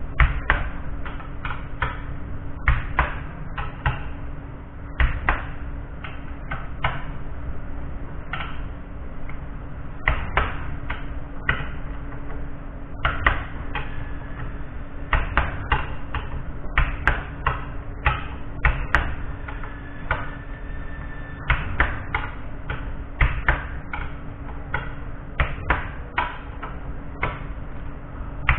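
Hand ratchet with a long socket extension clicking in short runs of strokes as bolts in an opened transaxle case are turned, with metal tool knocks, over a steady low background hum.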